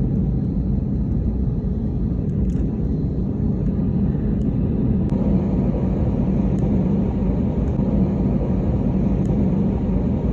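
Jet airliner cabin noise while taxiing on the ground: a steady low rumble of the engines and rolling wheels with a constant low hum, and a few faint ticks.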